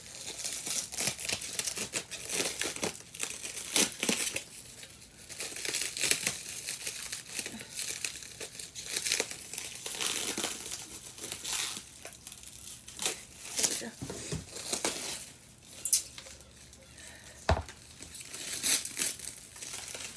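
Packaging being crinkled and torn by hand while unpacking a boxed tree ornament, in irregular rustling bursts. A single sharp knock comes near the end.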